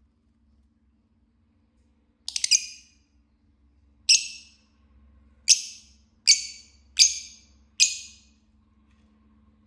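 Fischer's lovebird giving a string of short, sharp, high-pitched chirps: about six calls roughly a second apart, starting about two seconds in, the first a quick stutter.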